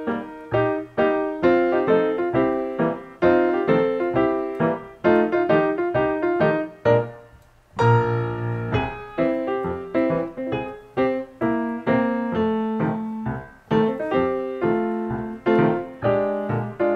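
Solo piano background music, notes struck one after another and fading, with a short drop about seven and a half seconds in before a new chord.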